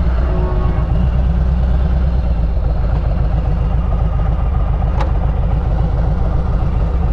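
Harley-Davidson Road Glide Special's V-twin engine running steadily as the motorcycle rides along, with loud, low exhaust pulses.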